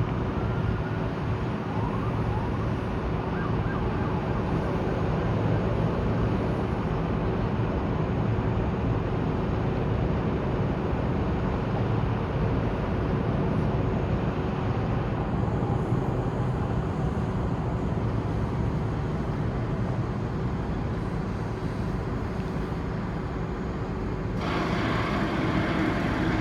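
Steady city traffic noise heard from above, with a constant low hum running through it. About 24 seconds in, the hiss turns sharply brighter.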